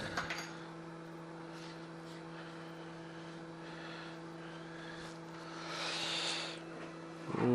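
Steady low electrical or motor hum, with a short rush of airy noise about six seconds in.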